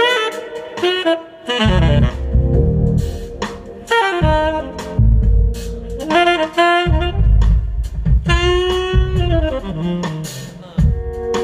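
Tenor saxophone playing a jazz solo in quick, running phrases, with a held note near the end, over bass and drums.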